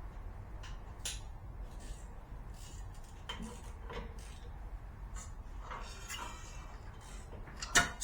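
Scattered metal clicks and clinks of hand tools being worked, with one louder clank near the end.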